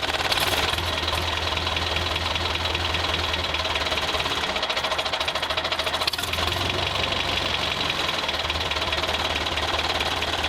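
Vehicle engine running steadily with a fast, even knocking pulse. Its low hum drops away briefly about halfway through, then comes back.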